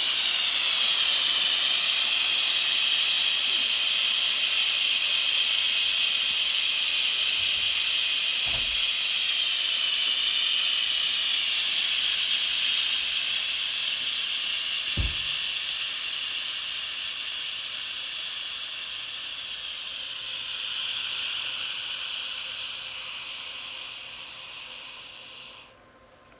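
Compressed welding gas hissing out of a cylinder's open valve as the tank is vented, slowly weakening as the pressure falls, then cutting off sharply just before the end. Two faint knocks come about a third and halfway through.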